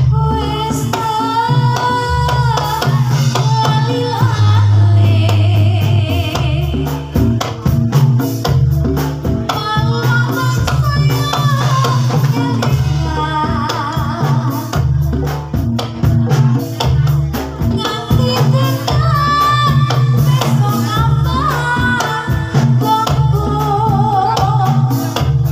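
Live Javanese jathilan (kuda lumping) trance-dance music: an ensemble with a steady drum rhythm, rattling percussion and a wavering sung or melodic line over a continuous low beat.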